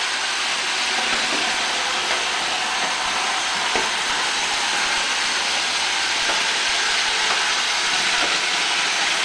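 Roomba robot vacuum running, a steady hiss of its vacuum motor and brushes.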